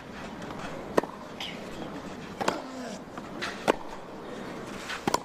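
Tennis rally: a ball struck back and forth by racket strings, four sharp hits about a second and a quarter apart.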